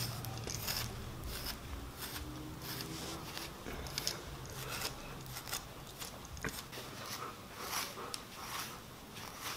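Grooming brush raking through a molting Siberian husky's thick coat: a quick, irregular run of rasping strokes.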